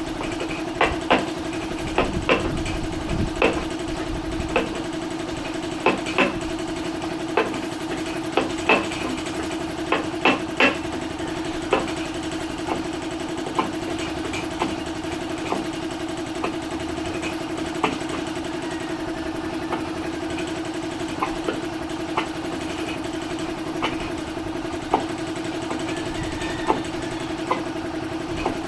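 A steady mechanical hum from a running machine, with irregular sharp knocks or taps over it, coming more often in the first half and more sparsely later.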